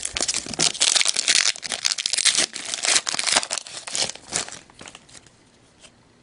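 Hockey card pack wrapper being crinkled and torn open, a dense crackly rustle that dies away after about four and a half seconds.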